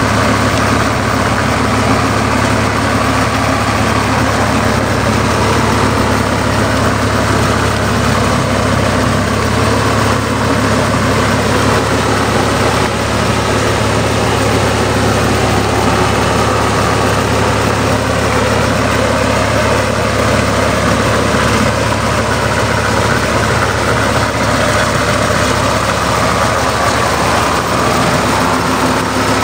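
Swaraj 855 tractor's three-cylinder diesel engine running steadily under load, driving a rotavator through flooded paddy mud.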